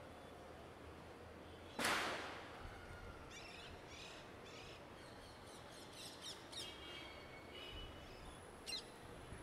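Birds chirping and calling in a run of short, high notes over a low, steady hum of distant city traffic. About two seconds in, one loud, harsh burst of sound stands out above everything else and fades over half a second.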